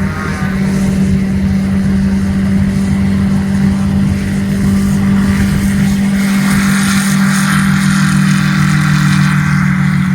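Piston aircraft engine and propeller running at a steady high power setting, its pitch holding level. A rushing noise swells about six seconds in and eases near the end.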